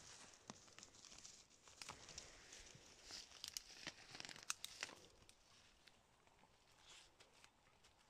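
Dry fallen leaves and twigs rustling and crackling as a dachshund noses and roots through the undergrowth, busiest in the first five seconds, then fainter.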